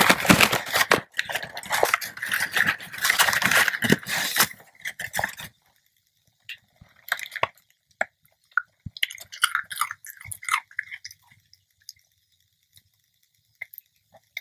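Potato crisps being crunched: dense, loud crunching for about the first five seconds, then quieter, scattered crunches and clicks as a small dog chews a crisp it has been handed.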